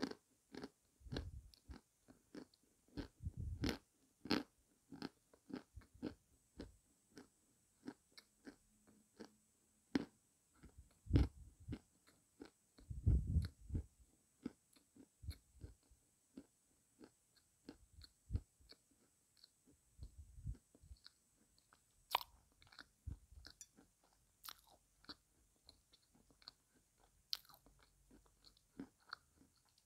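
Close-up chewing of dry, chalky edible clay: crisp crunches and clicks two or three a second, with now and then a deeper, heavier crunch.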